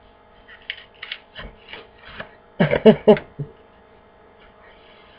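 Small clicks and rubbing from a touch-screen stylus pen being handled and twisted in the fingers. A little past the middle comes a short three-beat laugh from a woman.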